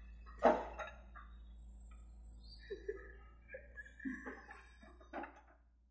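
Logs knocking as a Hitachi excavator's grapple handles them: one sharp wooden thunk about half a second in, then scattered fainter knocks and short sounds over a faint low engine hum.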